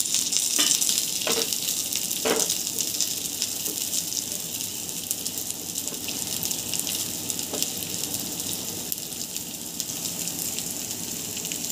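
Slivered almonds, cashews and pistachios frying in ghee in a nonstick pan, a steady high sizzle as they are stirred with a silicone spatula, with a few light knocks of the spatula against the pan in the first couple of seconds. The nuts are turning golden.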